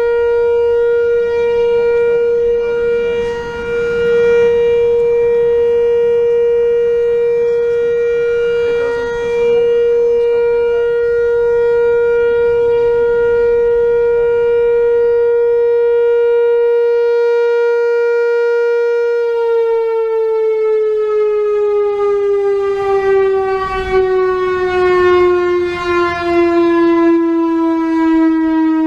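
Whelen WPS-4000-4 electronic outdoor warning siren sounding a steady tone rich in overtones, which about two-thirds of the way through begins a slow, continuous fall in pitch. Its output is weak, which the uploader puts down to age and a couple of likely blown drivers.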